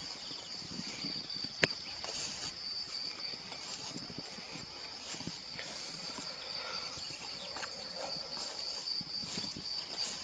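A steady, high-pitched chorus of insects, with scattered faint rustles and a single sharp snap about one and a half seconds in.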